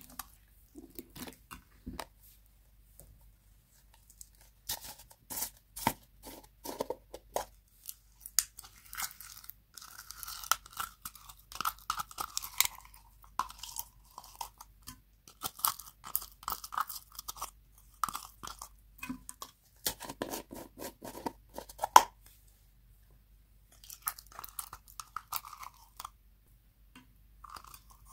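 Glitter slime being squished by hand and pulled out of plastic jars. It makes sticky crackling and squelching clicks that come in irregular spells with short pauses between.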